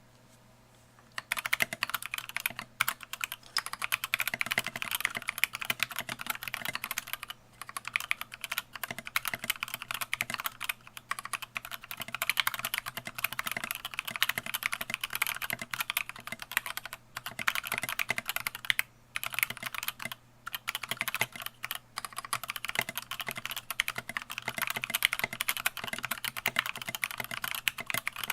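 Fast typing on a custom DZ60 60% mechanical keyboard with Krytox-lubed Gateron Yellow linear switches and Maxkey SA keycaps in a frosted acrylic case. It is a dense, continuous run of keystrokes that starts about a second in and breaks off briefly a few times.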